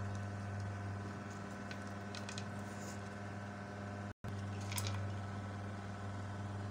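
A steady low electrical hum with a few faint ticks of split chickpeas (chana dal) dropping from a mug onto beef pieces in a steel pot; the sound cuts out for an instant a little after four seconds.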